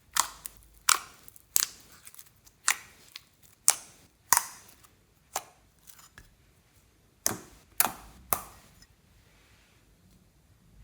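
A series of sharp, short clicks or snaps at an uneven pace, roughly one every half second to a second. They stop about eight and a half seconds in.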